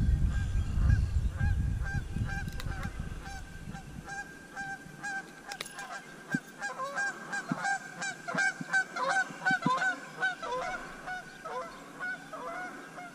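A flock of birds giving honking calls over and over, thickest in the middle seconds. A low rumble fades out over the first four seconds.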